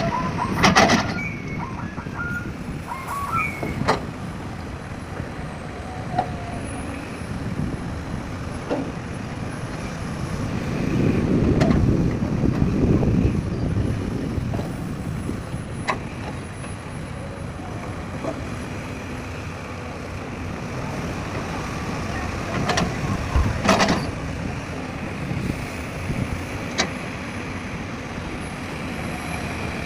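Heavy diesel machinery running, an excavator working beside dump trucks, with a louder swell of engine noise about eleven to thirteen seconds in and several sharp clanks and knocks, the loudest near the start and a little after twenty seconds.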